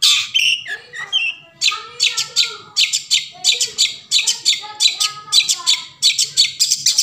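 Long-tailed shrike (cendet) calling: a fast, even run of harsh, scratchy notes, several a second, mixed with short pitched notes lower down.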